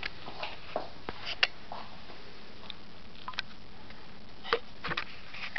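Handling noise from a handheld camera: a few scattered short clicks and taps over a steady low hiss, the sharpest about a second and a half in.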